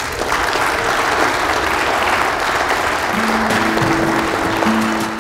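A room of guests applauding. About three seconds in, guitar music comes in under the clapping.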